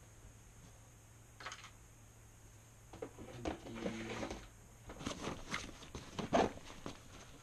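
Handling noises as things are moved and a backpack is opened by hand: scattered rustles, clicks and light knocks. They are sparse at first and come thick and fast over the last couple of seconds.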